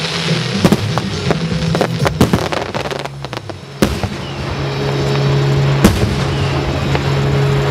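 Aerial fireworks shells bursting in a rapid series of bangs and crackles, thinning out after about three seconds, with two louder single bangs near the middle and later. Music with long held low notes plays underneath.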